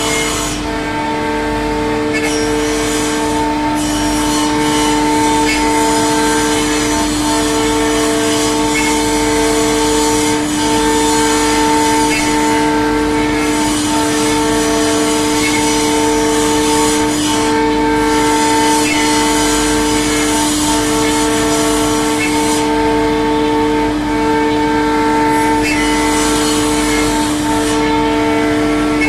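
CNC wood router running and cutting: a steady spindle whine with several held tones over a noisy hiss, one of the tones breaking off and returning about once a second.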